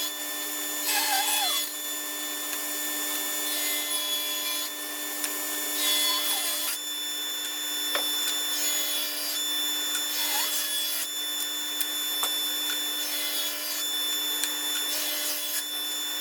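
Woodworking power tools milling white oak boards into slats: a steady machine whine under the hiss of cutting, changing every second or two.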